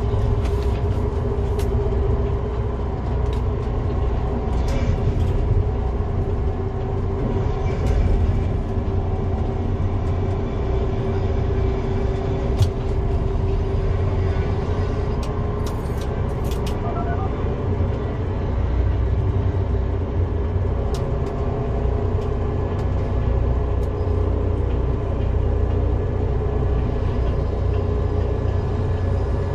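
Tower crane machinery running steadily with a steady motor whine over a heavy low rumble of wind, heard from inside the operator's cab while a gang form hangs on the hook in strong wind. A few brief clicks along the way.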